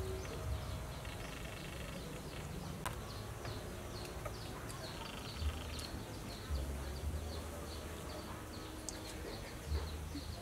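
Outdoor ambience: a steady series of short, high chirps repeating about three times a second, with an intermittent low rumble.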